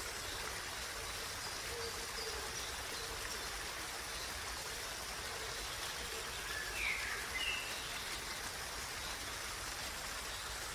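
Steady rush of water, with a few short bird chirps about seven seconds in.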